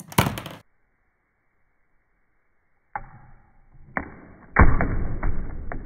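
A rubber-band-powered LEGO Technic mousetrap snapping shut: a sharp plastic clatter lasting about half a second. About three seconds later the snap is heard again slowed down and lower in pitch, as a string of dull clacks and rattles with the loudest knock a little past the middle.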